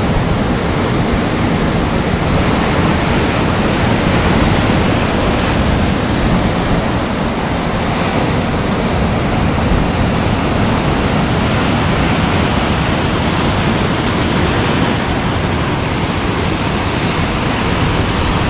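Ocean surf breaking and washing over rocks in a steady rush.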